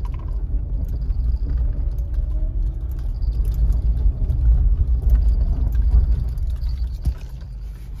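Low rumble of a 2011 Honda CR-V being driven slowly through sharp turns, heard from inside the cabin. It grows a little louder around the middle and eases off near the end.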